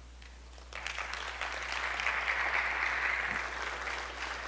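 Audience applauding, the clapping starting just under a second in, swelling, then easing off slightly.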